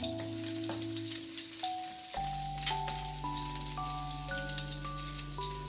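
Chopped garlic sizzling and crackling in hot cooking oil in a pan, with steady background music playing over it.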